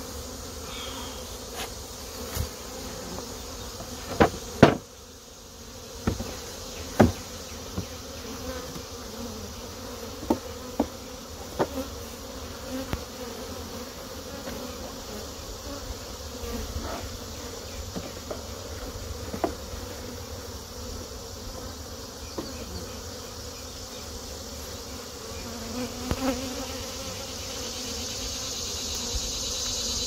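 A colony of honey bees buzzing steadily around an open hive, with sharp knocks and clicks of wooden hive boxes and frames being handled, the loudest about four to five seconds in.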